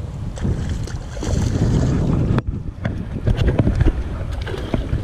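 Wind rumbling on the microphone over water, with short splashes and clicks in the second half as a hooked peacock bass thrashes at the surface beside the boat.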